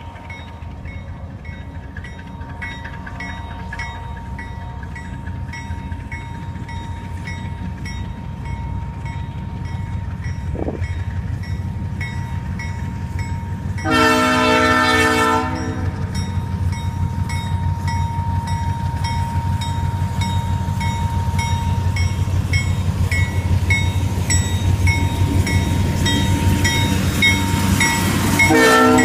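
GE B23-7 diesel locomotive drawing near, its engine rumble growing steadily louder until it is close by. Midway it sounds one loud horn blast of about a second and a half, and another blast starts at the very end. A bell dings about twice a second throughout.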